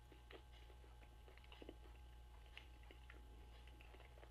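Faint chewing of a mouthful of Hot Pocket pastry and chicken pot pie filling with the mouth closed: soft, irregular small clicks over a low steady hum.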